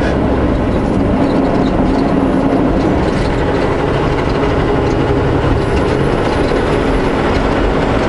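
Semi truck running down the highway, heard from inside the cab: a steady engine drone mixed with tyre and road noise.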